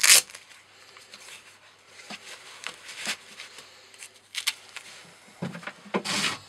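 Hand-handling noises: a short, loud scrape right at the start, then scattered soft clicks and rustles, and a longer hissing rub shortly before the end.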